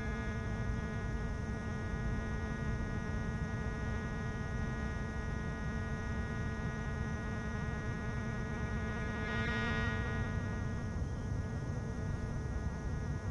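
Battery-powered instrument holding a buzzing, wheezing drone of several steady stacked tones, brightening briefly about ten seconds in.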